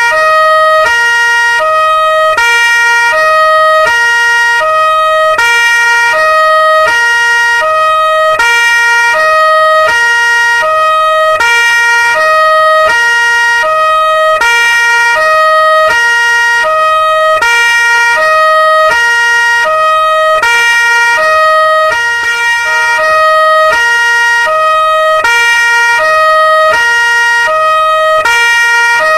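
Two-tone police siren alternating steadily between a low and a high note, each held for under a second.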